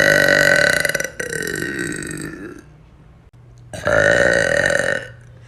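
A woman burping loudly three times: a long burp ending about a second in, a second one right after that sinks in pitch, then after a pause another burp near the end.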